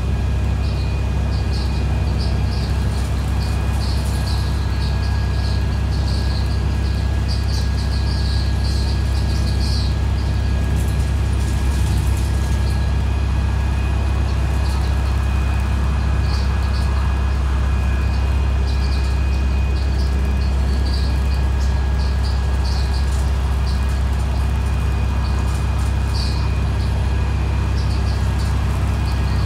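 Cummins ISBe 6.7 diesel engine of a MAN 18.240 single-decker bus heard from inside the saloon while cruising, a steady low drone with road noise and a steady high turbo whistle over it. Light high chirps come and go, most in the first ten seconds and again near the end.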